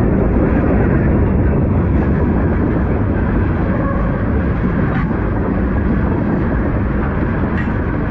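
Freight train cars, tank cars and boxcars, rolling past close by: a steady loud rumble of steel wheels on the rails, with a few faint clicks.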